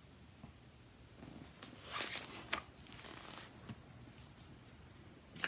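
Rustling of a hardcover picture book being handled and its page turned: a swishing rustle about two seconds in with a sharp click, and another short rustle near the end.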